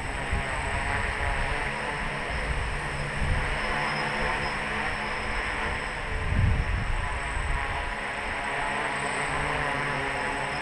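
Three electric motors and propellers of a 3D-printed tricopter in flight, a steady buzzing hum that holds pitch, with a brief low buffeting rumble about six seconds in.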